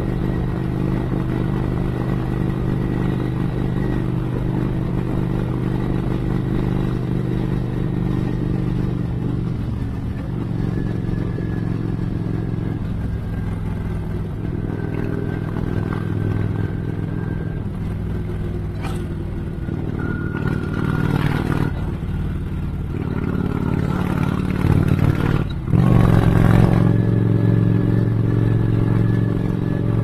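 Cruiser motorcycle engine running at a steady cruising pace, with wind and road noise. The engine note changes about ten seconds in, and near the end it briefly drops off, then comes back louder.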